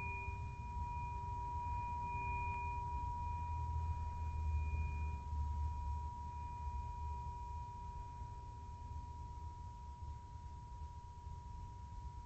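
A sustained ringing tone, like a struck bowl's, with a fainter higher overtone that dies away about halfway through, over a low hum. The whole slowly fades out.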